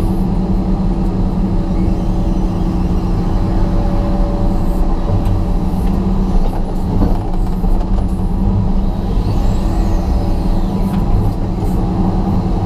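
John Deere 200LC excavator's diesel engine running steadily under load, heard from inside the cab, while the excavator digs, swings and dumps a bucket of sod and topsoil.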